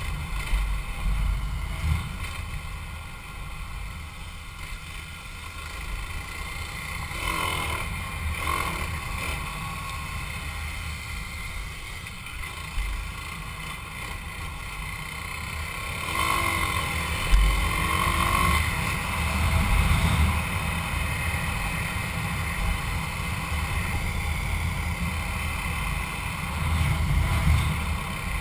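Motorcycle running at road speed on a dirt road, its engine under heavy wind buffeting on the microphone, with a low rumble throughout. The engine note changes briefly twice, about a third of the way in and again past the middle.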